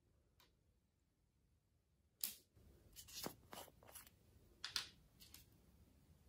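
Small plastic paint pot being opened and handled: a sharp click about two seconds in as the lid comes off, then a string of lighter clicks and taps of plastic, with another sharp click a little before the end.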